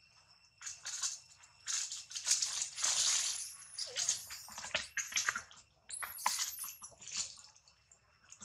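Baby macaque screaming in a run of short, high-pitched shrieks, loudest about three seconds in and again about six seconds in, mixed with rustling and crunching of dry leaves.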